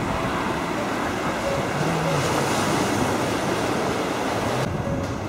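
Sea waves washing against a rocky shore, a steady rushing, with wind buffeting the microphone. The rush drops off suddenly near the end.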